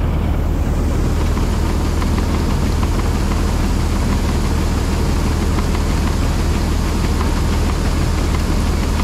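Combine harvester running steadily: a heavy, even engine hum with a hiss of working machinery that swells in the first second and then holds.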